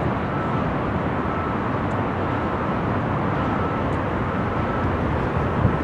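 Steady low rumble of diesel locomotives idling, with a faint high beep that comes and goes.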